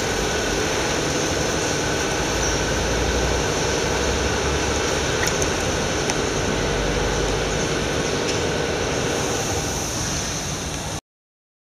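Automatic foam peeling machine running: a steady mechanical hum and whir that cuts off abruptly near the end.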